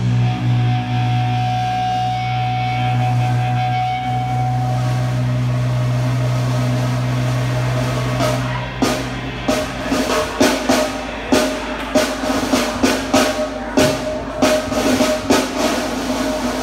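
A live rock band playing. A held low note from the guitars rings for the first half, then the drum kit comes in with a steady beat of about two hits a second.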